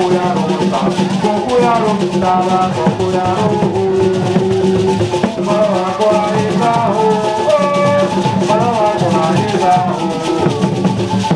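Vodun ceremonial music: drums and rattles keep a dense, continuous beat under voices singing a melody.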